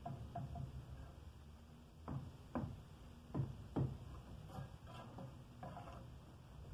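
Mason's steel trowel tapping and scraping on brick and mortar while laying a brick vault: a few short, sharp strokes, the loudest four between about two and four seconds in.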